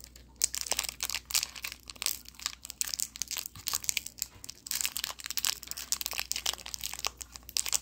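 A candy wrapper crinkling and tearing as it is pulled open by hand: a dense, irregular run of sharp crackles.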